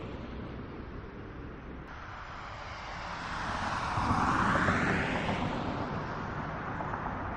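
Road traffic noise with a vehicle passing close by: a rushing sound that swells to its loudest about four to five seconds in and then fades. No crash impact is heard.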